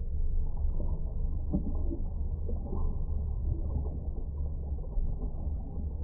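Twin-shaft shredder running with a steady, muffled low rumble, its blades turning under a slab of jelly, with faint irregular squishing as the jelly starts to press into the cutters.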